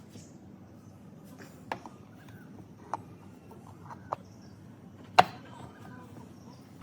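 Four sharp knocks or clicks about a second apart, the last and loudest about five seconds in, over a low steady background: tools and parts being handled during repair work.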